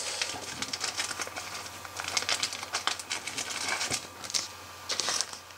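Hands handling a trading card close to the microphone: light crinkling and scattered small clicks and rustles.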